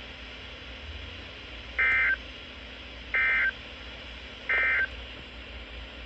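Three short bursts of warbling digital data tones from NOAA weather radios, evenly spaced about a second and a half apart. They are the SAME end-of-message code that closes a broadcast tornado warning.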